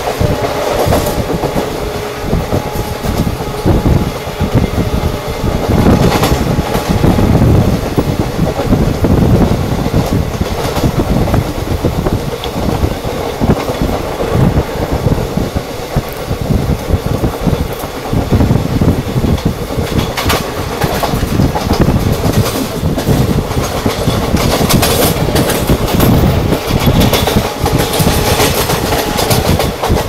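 Express train running at speed, heard from on board by an open window: a steady rumble with the wheels clattering over the rail joints.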